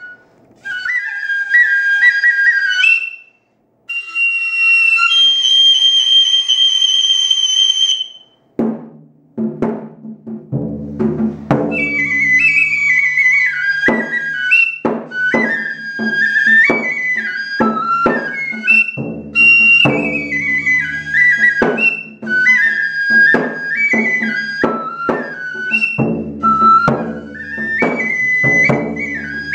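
Japanese kagura music: a bamboo transverse flute plays a high melody of stepped, held notes, alone at first. About nine seconds in, a taiko drum beaten with sticks joins with a steady run of strikes under the flute.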